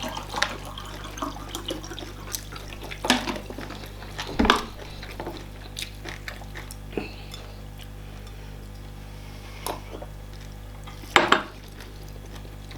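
Eating at a table: scattered short clinks and knocks of dishes and cutlery, with a few wet eating and liquid sounds. The loudest knocks come about four and a half seconds in and as a pair about eleven seconds in.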